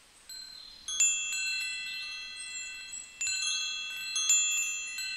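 Wind chimes ringing: clusters of clear, high metal tones struck about once a second, each note ringing on and slowly dying away.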